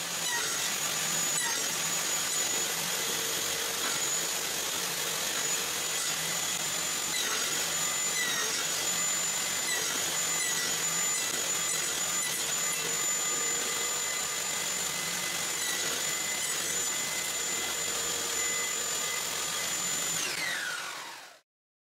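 Table saw running with a steady high whine, its pitch dipping briefly again and again as the single blade cuts the slots for a finger joint in a wooden board. Near the end the saw is switched off and the whine falls away.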